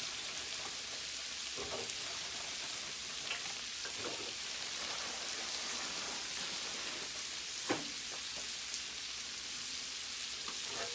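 Chicken wings frying in a basket of hot oil: a steady sizzle, with a few faint knocks.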